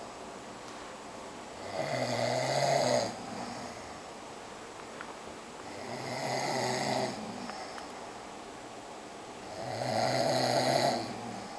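A sleeping person snoring: three snores about four seconds apart, each about a second long.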